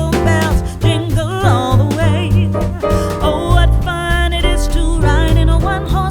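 Background music with a steady beat and deep bass under a melody line.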